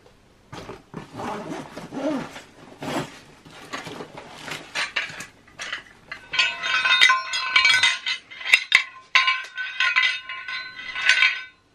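Hands rummaging in a backpack, with rustling and small knocks. About six seconds in, large metal medals start clinking and ringing against each other again and again.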